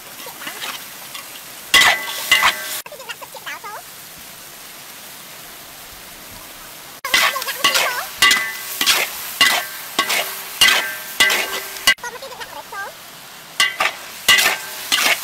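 A stir-fry sizzling in a hot wok while a metal spatula scrapes and clanks against the wok, each stroke making the metal ring briefly. The strokes come in short runs, at about two a second in the second half, with only steady sizzling between them.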